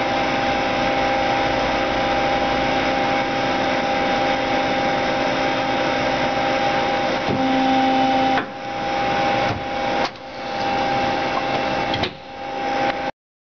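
1998 Mazak QT-20 CNC lathe running: a steady mechanical hum carrying a couple of steady tones, with a short lower tone about seven seconds in. The sound dips sharply three times in the last five seconds and then cuts off.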